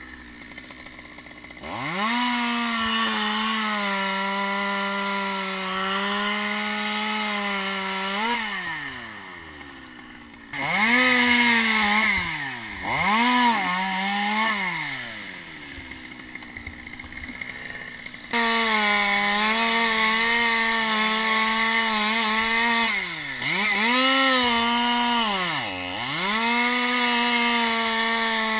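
Chainsaw cutting pine at full throttle in three long runs, dropping back to idle between them. The engine pitch dips and climbs again several times during the cuts.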